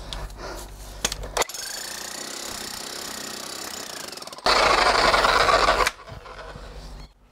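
Full Boar 1500W 32J SDS Max electric demolition hammer driving a clay spade down into root-filled soil. It runs in separate stretches that start and stop abruptly, loudest for about a second and a half past the middle.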